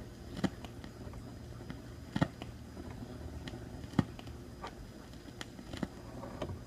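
Vinyl record playing on a turntable with no music left in the groove: stylus surface crackle over a low hum, with a sharp click repeating about every 1.8 seconds, once per turn of the record, typical of the stylus riding the run-out groove.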